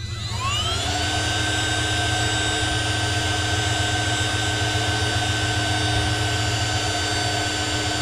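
Electric heat gun with a reflector nozzle switched on: its fan motor spins up over the first second to a steady whine over the rush of hot air, then is switched off right at the end, the whine falling in pitch as it winds down.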